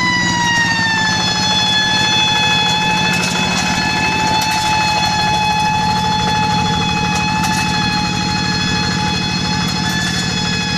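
Paddy-field tractor running under load with a loud, steady high-pitched whine (the 'nging') over the fast even chugging of its engine; the whine sinks slightly in pitch in the first second, then holds steady.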